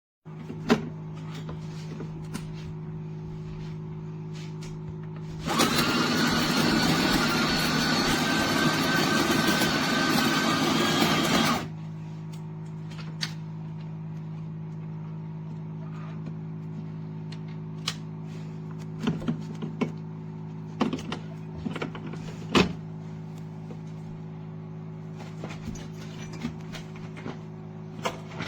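Espresso machine running with a steady hum. A much louder, rushing stretch lasts about six seconds, starting some five seconds in. Scattered clicks and knocks come later.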